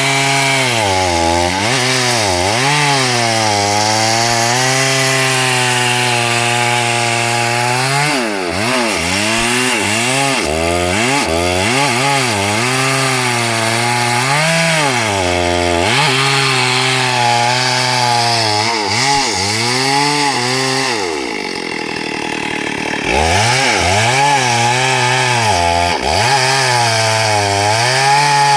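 STIHL MS382 two-stroke chainsaw cutting hardwood at high revs, its engine pitch repeatedly dipping and recovering as the chain loads up in the wood. About three-quarters of the way through it falls to a low idle for a couple of seconds, then revs back up and cuts on.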